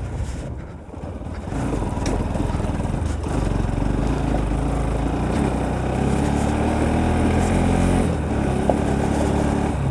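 Motorcycle engine running as the bike rides a rough road, picking up about a second and a half in and then holding steady.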